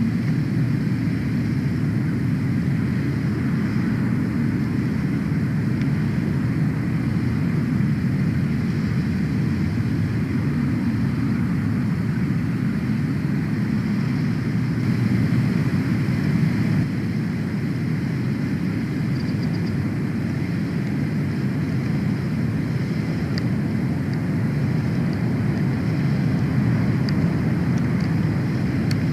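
Steady low rumble of wind buffeting the microphone, with no break.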